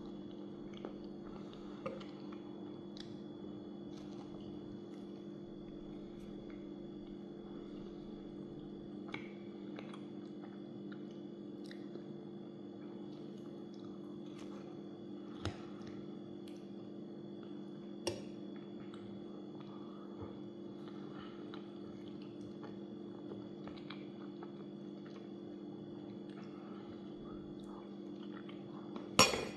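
A person eating at a table: chewing and occasional small clicks of cutlery on a plate, over a steady low hum with a faint high whine. A sharper knock comes near the end.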